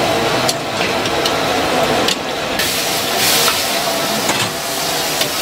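Stir-fry wok over a gas burner: hot oil hissing and sizzling over the burner's steady rush, with a few sharp metal clicks of a ladle. The hiss grows louder and brighter about two and a half seconds in, as flames flare up in the wok.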